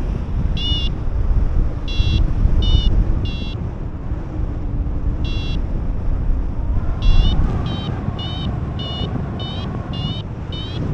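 Airflow buffeting the microphone in flight, with a paragliding variometer app on a phone giving short rising beeps. At first the beeps come singly and far apart; from about seven seconds in they speed up to roughly two a second, the vario signalling climbing lift.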